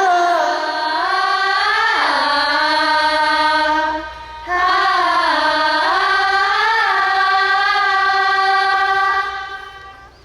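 A high voice singing a wordless melody in two long held phrases with a brief break between them, fading out near the end.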